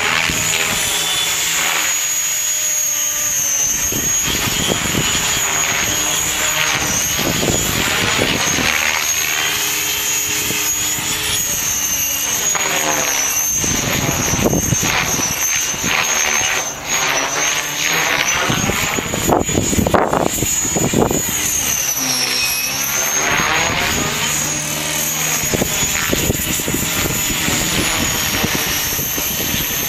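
Align T-Rex 550 electric RC helicopter in flight: a high motor whine that wavers in pitch as it manoeuvres, with the whoosh of its Edge 523 mm main rotor blades. Gusts of wind buffet the microphone.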